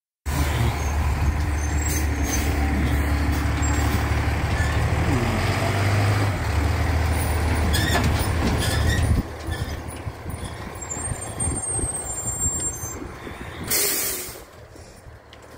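Fire engine's diesel engine running close by, loud and steady for about nine seconds before dropping away, followed by a short air-brake hiss about fourteen seconds in.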